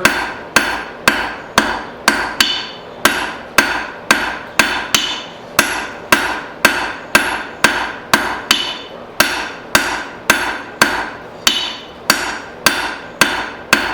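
Blacksmith's hand hammer striking hot 1/2-inch square steel stock on an anvil in a steady rhythm of about two blows a second, each blow ringing briefly: drawing out a long taper.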